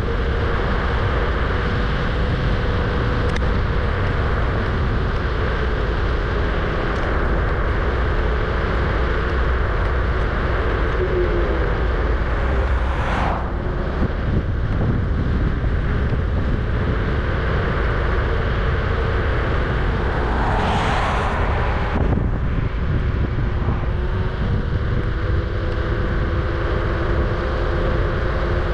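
Riding a Kugoo G-Booster electric scooter: a steady rush of wind and road noise on the microphone over a faint steady hum from the scooter. Two brief whooshes swell and fade, about halfway through and about three-quarters through.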